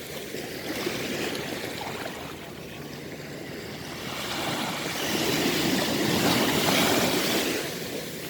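Ocean waves breaking and washing ashore, with one wave surging louder about five seconds in and fading near the end.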